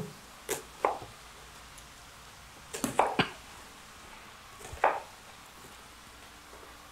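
Chef's knife cutting through an onion onto a wooden cutting board: about six short knocks of the blade on the board in uneven groups, with quiet pauses between them.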